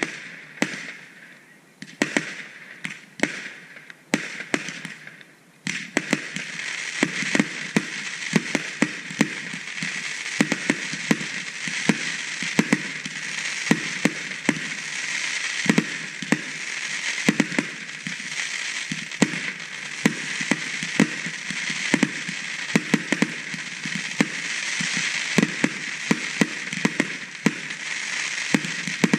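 Aerial fireworks bursting. A few separate bangs come in the first few seconds, then from about six seconds in a dense, continuous crackling with many sharp pops.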